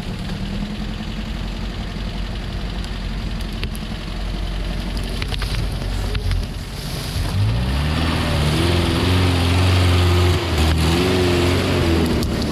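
Off-road vehicle engine running low with a few knocks. Then, about seven seconds in, it revs up and is held at high revs with a slightly wavering pitch.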